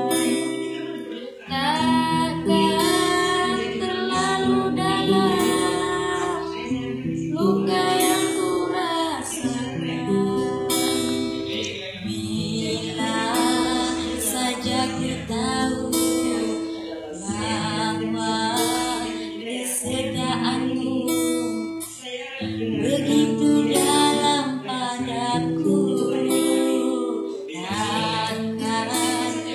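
A woman singing a song over acoustic guitar accompaniment.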